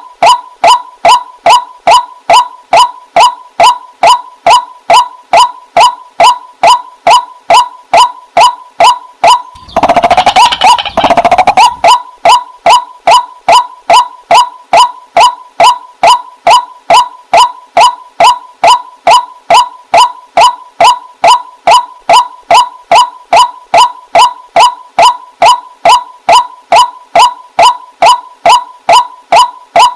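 Waterhen calling: a short, sharp note repeated steadily about two and a half times a second. About ten seconds in, a louder, rougher call takes over for about two seconds before the repeated notes resume.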